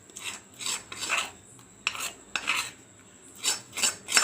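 A spoon scraping against a cooking pan in a series of short strokes, scraping the thick cooked ginger and sugar mixture out into a plate.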